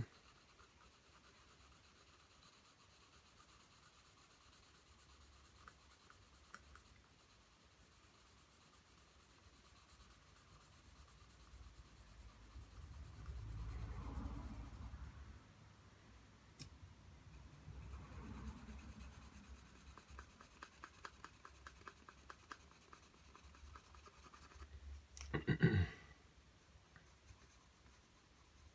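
Pencil scratching faintly on drawing paper in back-and-forth shading strokes, swelling louder in spells. Near the end there is one brief louder sound.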